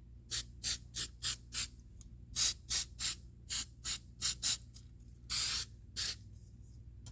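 Spray bottle of CA-glue accelerator squirted in about fourteen short hissing bursts, one a little longer near the end, onto freshly glued cyanoacrylate on a circuit board to cure the glue.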